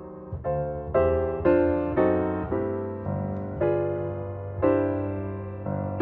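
Background piano music: chords struck about once or twice a second, each ringing and slowly fading.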